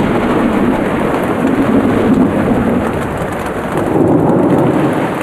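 Heavy rain and thunder of a monsoon storm, heard from inside a tent: rain pouring down on the tent, with thunder rumbling overhead.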